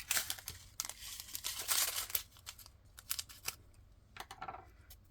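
Clicks and a dry rattling rustle, densest about one to two seconds in, from diamond painting drills and small plastic containers being handled.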